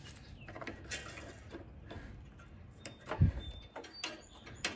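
Faint scattered clicks and handling noises as the starting-fluid aerosol can and its straw are brought to the lawnmower engine's open air intake, with a dull knock about three seconds in.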